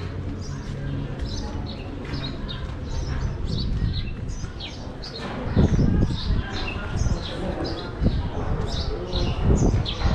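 Small birds chirping, a quick run of short high notes repeated several times a second, over a steady low rumble. A few louder low thumps come about halfway through and near the end.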